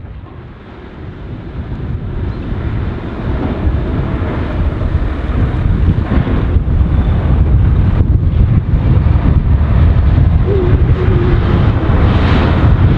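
Volvo L180F wheel loader's diesel engine working, growing louder over the first few seconds and then running loud and steady, with a short squeal twice in the last few seconds.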